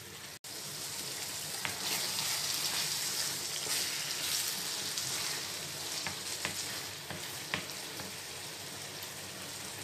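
Okra stew sizzling in a nonstick frying pan while a wooden spatula stirs it, with a few short scrapes and taps of the spatula against the pan. The sizzle is loudest for a few seconds early on, and the sound cuts out for an instant just after the start.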